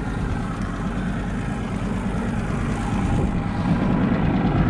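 Boat engine idling steadily, growing slightly louder about three seconds in.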